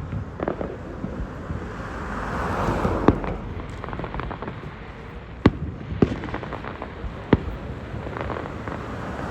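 Aerial fireworks bursting: a string of sharp booms, the loudest about three, five and a half, six and seven seconds in, with a crackling hiss of a crackle shell swelling a couple of seconds in.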